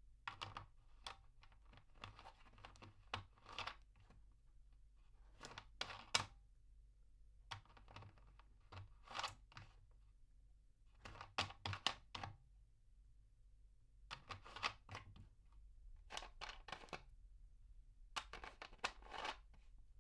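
Plastic water bottle cap being twisted, heard from medium distance: about eight short runs of dry plastic clicks and crackles with brief pauses between them.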